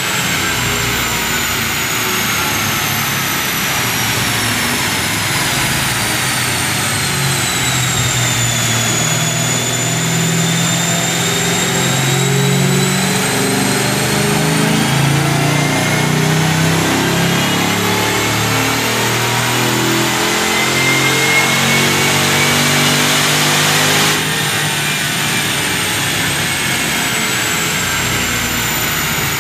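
Jaguar XKR's supercharged V8 running under load on a chassis dyno: the revs sag for the first several seconds, then climb steadily in a long pull with a high whine rising alongside, until the throttle is lifted about 24 seconds in and the sound drops.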